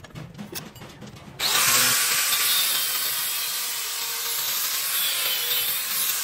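A few faint clicks, then about a second and a half in an angle grinder's thin cutting disc bites into an old spark plug's steel body clamped in a vise. The cut is a loud, steady hissing grind with a faint motor whine underneath.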